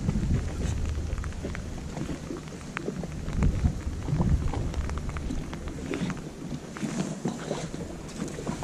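Steady rain with wind buffeting the microphone: a low rumble that swells and fades, scattered with small ticks of raindrops.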